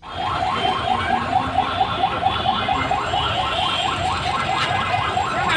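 Electronic alarm sounding in street traffic: a rapid, even run of rising chirps that repeats steadily, over the hum of a congested road.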